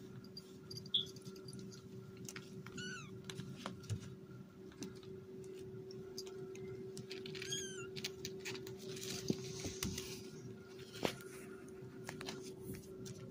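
18-day-old kittens mewing: two short, quavering high-pitched mews, about three and seven seconds in, over small scratches and rustles of paws on a quilted pad and a steady low hum.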